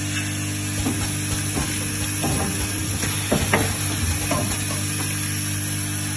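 Automatic spot welding machine for switch parts running: a steady buzzing hum from its vibratory bowl feeders, with irregular mechanical clicks and clacks from the feeding and welding mechanism, two sharper clacks about three and a half seconds in.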